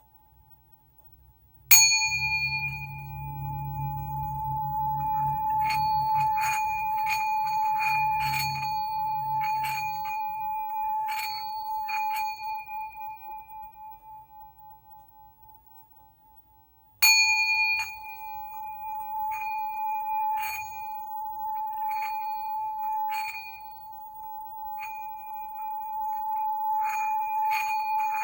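Singing bowl struck, then sounded by working the mallet around its rim, so a single ringing tone swells and then fades with a wavering pulse. It is struck again about seventeen seconds in and the tone builds once more.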